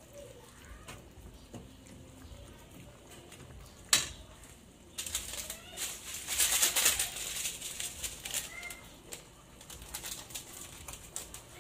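Metal spatula clacks once against an aluminium pot about four seconds in, then corned beef and onion sizzle and crackle in hot oil, loudest a couple of seconds later.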